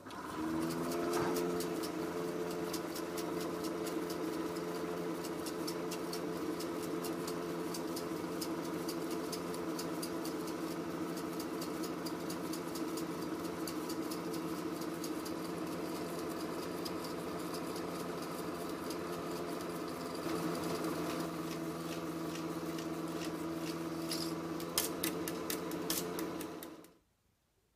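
Chinon 2000GL dual-gauge cine projector rewinding film: its motor starts suddenly and runs with a steady hum and fast, dense ticking. A few louder ticks come near the end, and then it stops abruptly.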